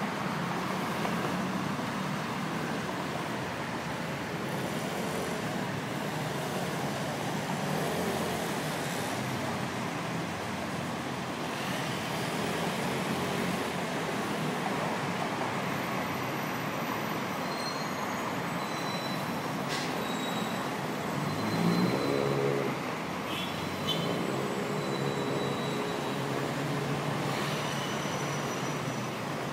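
Heavy rush-hour city road traffic: a steady wash of engines and tyres from many vehicles. About 22 seconds in, one vehicle's engine climbs in pitch as it accelerates, the loudest moment.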